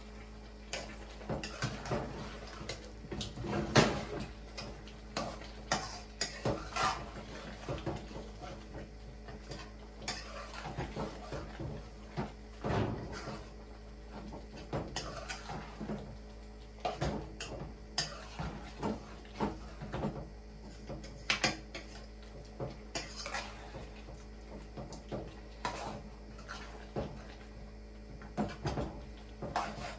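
Spoon scraping and knocking against a large cooking pot while chopped pig tails are stirred, in irregular clinks and scrapes throughout, over a faint steady low hum.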